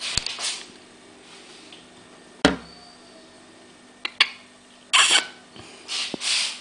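Sharp knocks and clicks of hard objects being handled, the loudest a single knock about two and a half seconds in and a quick pair of clicks around four seconds, with short bursts of rustling at the start and again in the last couple of seconds.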